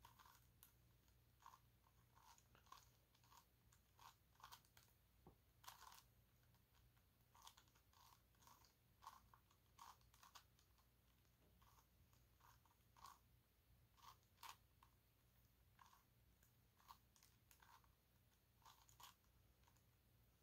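Plastic pieces of a 5x5 dodecahedron twisty puzzle (gigaminx) clicking and clacking as its faces are turned by hand: faint, irregular clicks, often one or two a second.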